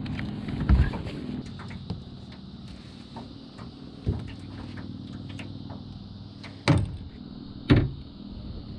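Predator 420cc 13 hp single-cylinder longtail mud motor engine idling steadily, with four loud sharp knocks over it, the last two near the end.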